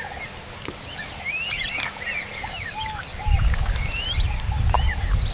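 Background birdsong: many short, quick chirps and whistles from small birds, overlapping throughout. About three seconds in, a low rumble of wind on the microphone joins them.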